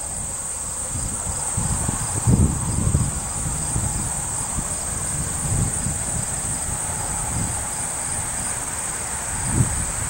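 A steady high chorus of summer insects, crickets among them, with a faint pulsing chirp under it. Irregular low rumbles of wind buffeting the microphone come and go, strongest about two and a half seconds in and near the end.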